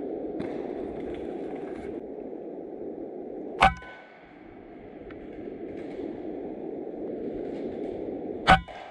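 Two shots from a .22 RTIArms Prophet PCP air rifle, about five seconds apart, the second near the end: each a sharp crack followed by a short metallic ring. A steady low background noise runs underneath.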